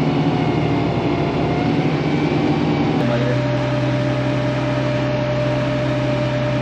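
Tractor engine running steadily, heard from inside the cab, its pitch settling to a different steady note about three seconds in.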